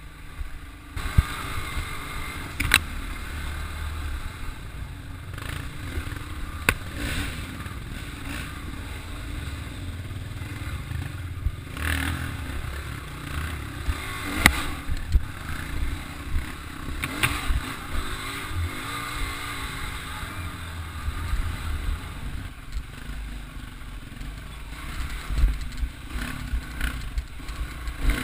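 Dirt bike engine running while the bike rides a rough forest trail, heard from on board, with frequent sharp knocks and rattles from the bumps.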